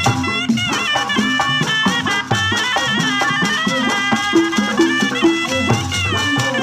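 Sundanese tarompet, a double-reed shawm, playing a loud, ornamented melody with slides between held notes, accompanied by rapid kendang drum strokes.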